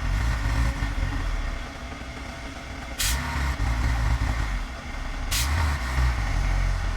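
Heavy diesel machinery running with a low, steady rumble. Two short, sharp bursts of noise come about 3 and 5 seconds in.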